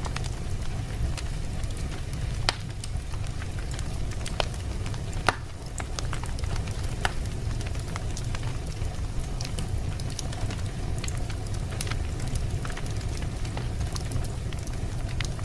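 Wood fire burning in a fireplace, crackling with scattered sharp pops over a steady low rumble. Two louder pops come a couple of seconds apart early on.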